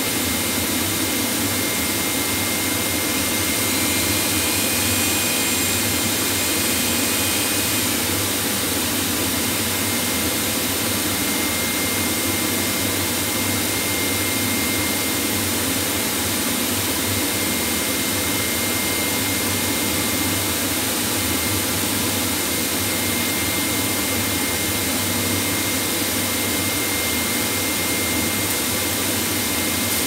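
Factory machinery running with a steady, loud roar and a thin, high, steady whine over it.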